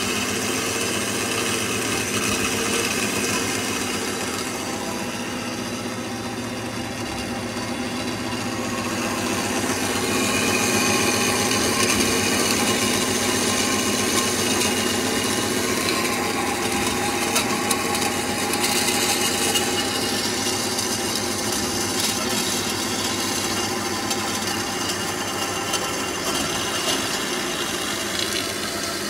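Kasto SSB-A2-CNC-CC automatic vertical band saw running, its blade cutting through rectangular steel tubing: a steady grinding sound with several high, steady tones, getting louder about ten seconds in.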